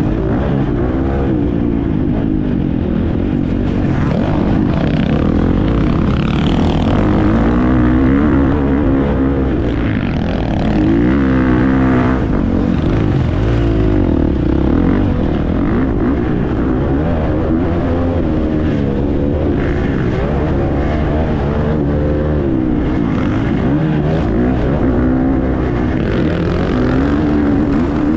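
Husqvarna FC350 single-cylinder four-stroke motocross engine under race load, its pitch rising and falling again and again as the throttle opens and closes.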